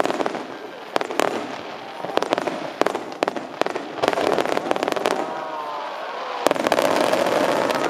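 Aerial fireworks shells bursting in quick succession: a string of sharp reports and crackling stars, growing louder and denser near the end.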